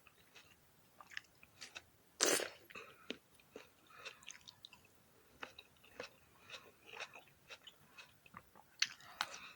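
Close-miked biting and chewing of black sapphire grapes: one loud crisp bite about two seconds in, then many small wet, crunchy clicks as the grapes are chewed.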